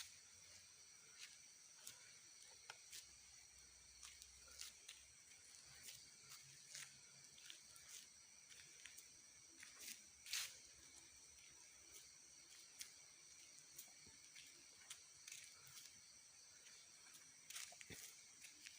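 Faint night ambience: insects chirring steadily in high, thin tones, with scattered small clicks and rustles, one louder click about ten seconds in.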